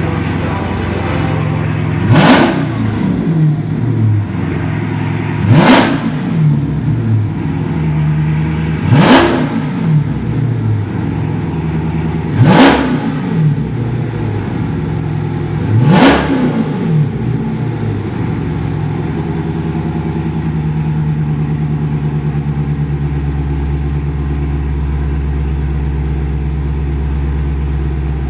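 2018 Dodge Charger Daytona 392's 6.4-litre HEMI V8 idling and revved with five quick throttle blips about three and a half seconds apart, then settling back to a steady idle with a deeper rumble near the end.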